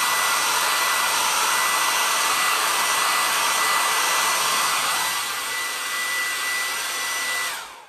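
Handheld hot-air dryer running steadily with a thin high whine, drying freshly applied chalk paste; it switches off near the end.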